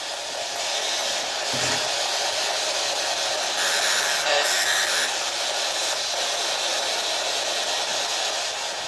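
Steady hiss, like radio static, with no knocks or bangs in it; it swells slightly near the middle.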